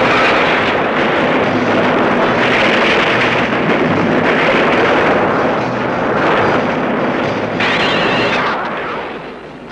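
Loud, sustained rumbling noise like continuous explosions, a sound effect, easing off near the end.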